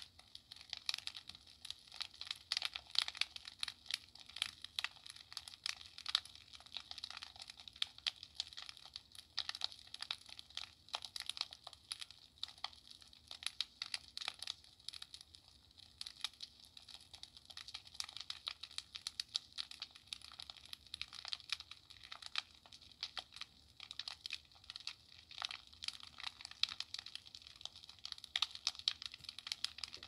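Crackling fire: a dense, irregular patter of small snaps and pops, some sharper than the rest.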